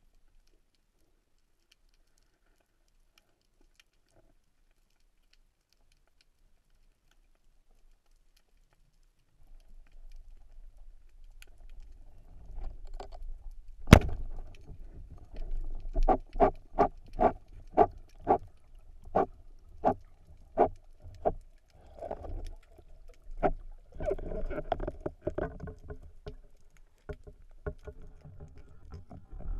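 Rubber-band speargun firing underwater: one sharp, loud crack roughly halfway through, after a quiet stretch. It is followed by a run of sharp clicks, about two a second, and then water churning as the speared fish is brought in.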